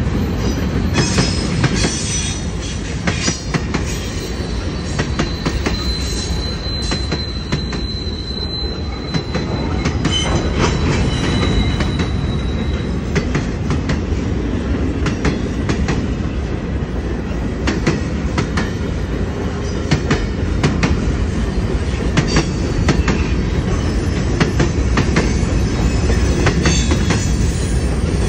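Freight train's cars rolling past: a steady rumble of steel wheels on the rails with repeated clicking over rail joints. A thin, high wheel squeal sounds from about five to twelve seconds in.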